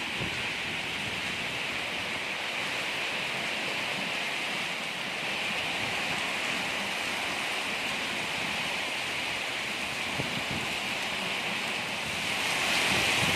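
Heavy rainstorm: a steady downpour of rain with wind, swelling louder near the end.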